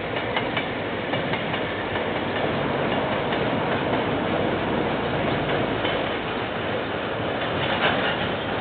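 A freight train hauled by two diesel locomotives passes, a steady rumble of engines and wagons with scattered sharp clicks from the wheels on the track.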